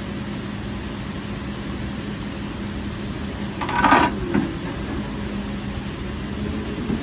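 Excavator engine running steadily with a constant low hum. About four seconds in, a short, higher-pitched sound stands out briefly.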